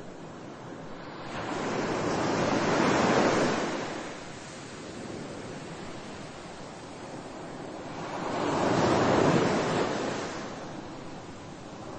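Ocean waves washing in: a rushing surge that swells and fades twice, the first about a second in, the second about eight seconds in.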